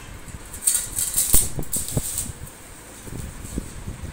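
Stick-welding arc tacking a steel chair leg to the seat: several short bursts of crackling hiss in the first two seconds, with a few light knocks after.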